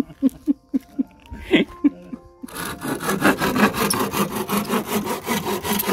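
Cordless power saw cutting pallet wood: a run of short separate cuts, then from about halfway a continuous, louder cut through the wood.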